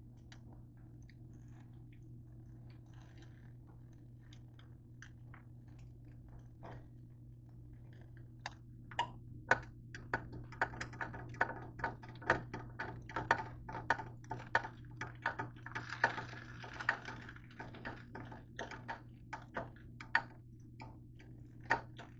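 Crisp, freshly grilled slices of buttered bread being picked up and handled, giving a run of light crackling clicks and taps that starts about a third of the way in and grows busier. A steady low hum runs underneath.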